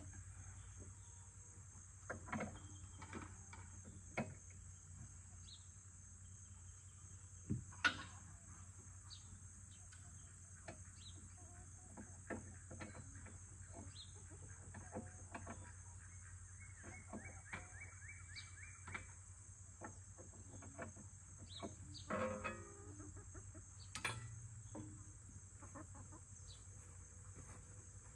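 Scattered metallic clicks and knocks of the backhoe's hydraulic hoses being coupled to the RK25 tractor's quick-connect ports, the loudest about eight seconds in. Hens cluck now and then, over a steady high drone of insects.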